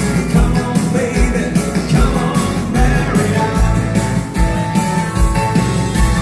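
A live dance band playing a rock'n'roll number over the PA in a hall, electric guitars over a drum kit with a steady kick-drum beat; a long held note comes in about halfway through.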